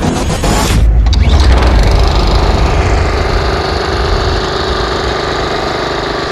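Small lawn mower engine coming in about a second in and then running steadily and loudly.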